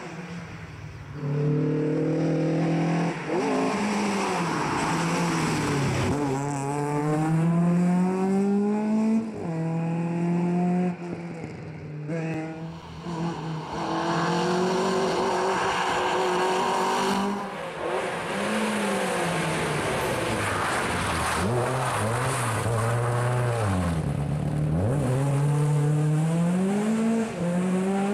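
Rally cars at full throttle passing by, engines revving hard through the gears. The pitch climbs repeatedly and drops sharply at each shift or lift.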